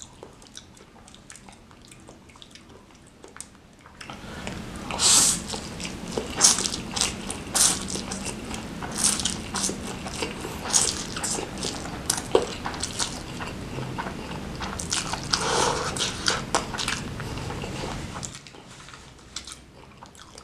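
Close-miked slurping and chewing of spicy fried noodles. After a quieter start, it turns loud about four seconds in, with quick wet sucks and smacks, and eases off near the end.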